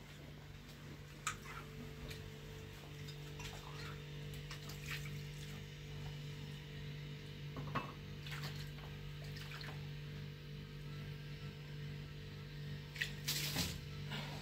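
A plastic tray being washed by hand on the floor: water splashing and hands rubbing across the tray, with scattered scrapes and knocks, the loudest near the end as the tray is lifted. A steady low hum runs underneath.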